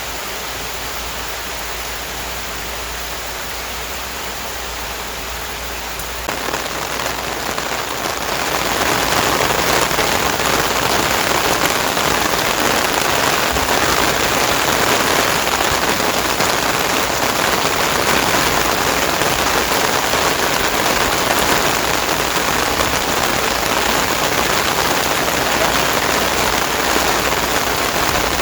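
Steady heavy rain falling, with no thunder or other distinct sounds standing out. The downpour grows heavier and louder about six seconds in and again about two seconds later, then holds.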